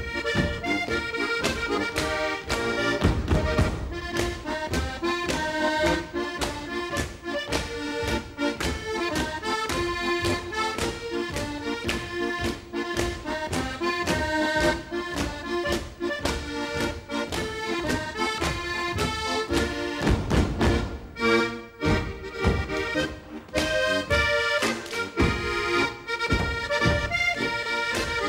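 Lively Alpine folk dance tune led by an accordion, with many sharp slaps and stamps in time from Schuhplattler dancers. The tune breaks off briefly about twenty-one seconds in, then picks up again.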